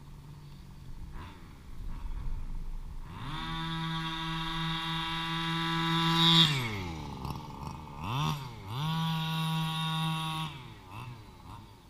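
HPI Baja 1/5-scale RC car's petrol two-stroke engine idling, then revving up hard and holding high revs for about three seconds as it accelerates away. It drops back, blips once, and runs at full throttle again for about a second and a half before dropping. Under acceleration there is a metal rattling that the owner cannot explain on a nearly new engine.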